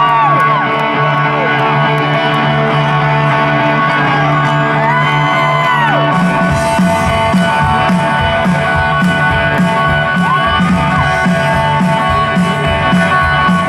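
Live rockabilly band: an electric guitar rings out held chords while the crowd whoops, then about six seconds in the drums and bass come in with a steady driving beat.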